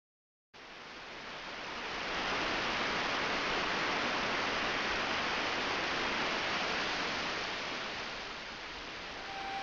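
Heavy rain pouring down, a steady hiss that starts suddenly after half a second of silence and swells over the next couple of seconds.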